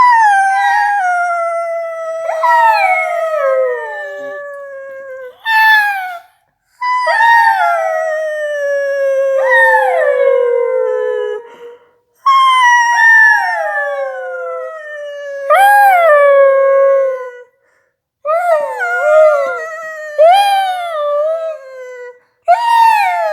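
A dog howling: a series of long howls, each starting high and sliding down in pitch with a jump back up partway through, broken by short pauses, with a few shorter wavering howls near the end.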